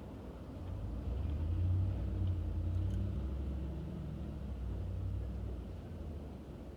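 A car passing on the road: a low rumble that swells about a second in and fades away over the next few seconds.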